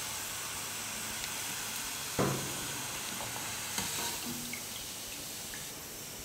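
Oil sizzling steadily as rava gulab jamun balls fry in a kadai and are lifted out with a perforated steel skimmer. A short knock comes about two seconds in, and a fainter click near four seconds.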